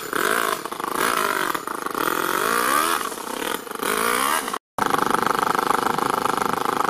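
Toyan FS-L200 two-cylinder four-stroke nitro engine in an RC crawler, revving up and down under throttle as the truck drives. After a sudden brief cut about two-thirds of the way through, it runs at a steady, even speed.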